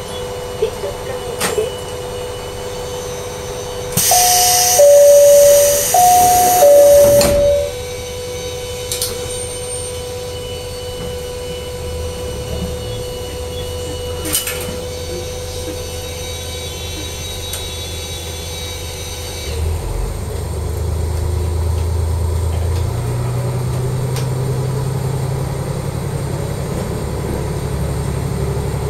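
KiHa 40 diesel railcar: a two-note falling chime sounds twice over a loud hiss as the pneumatic passenger doors close. About twenty seconds in, the diesel engine's low note comes up and then steps higher as the railcar pulls away.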